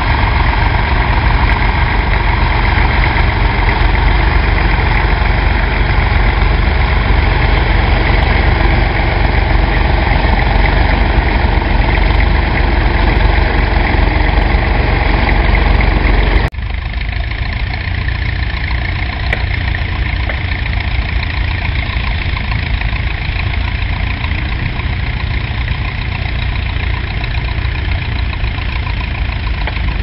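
Vintage grey Ferguson tractor's engine running steadily under load while pulling a plough. About halfway through the sound cuts abruptly to a slightly quieter level.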